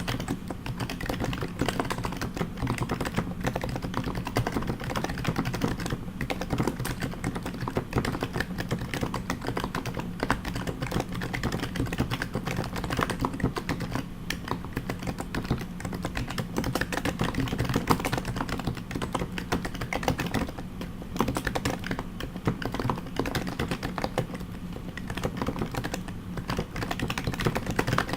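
Fast, continuous typing on a custom HHKB JP Topre keyboard fitted with heavy BKE domes, Hi-Pro keycaps and silent purple sliders: a dense run of keystrokes, with a couple of brief lulls about two-thirds of the way through.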